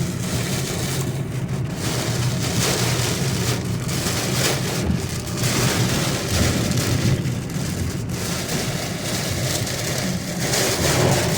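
Storm of strong, gusting wind with heavy rain, swelling and easing every few seconds over a steady low rumble.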